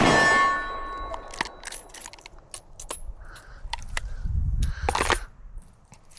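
A steel target ringing after being hit by a revolver shot, a clear metallic tone that fades out over about a second and a half. Scattered light clicks and knocks of handling follow.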